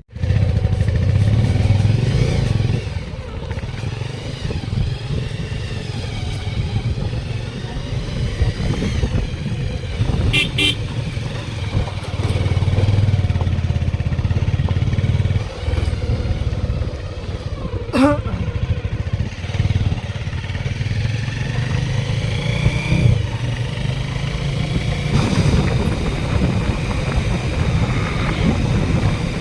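Motorcycle engine running steadily at riding speed with wind and road noise, as heard from the bike. A short vehicle horn toot sounds about ten seconds in.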